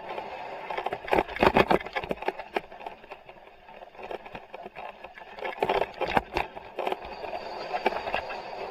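Mountain bike descending a rough dirt track, heard from a helmet-mounted camera: a steady rush of wind and tyre noise with bursts of rattling knocks as the bike goes over bumps, loudest about a second in and again around six seconds in.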